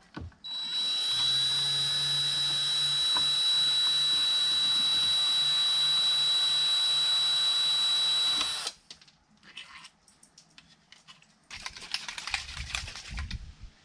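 Cordless drill-driver running steadily for about eight seconds as it backs screws out of a boat steering wheel's hub: a high, even motor whine that spins up at the start and stops abruptly. Scattered clicks and a short burst of noise follow near the end.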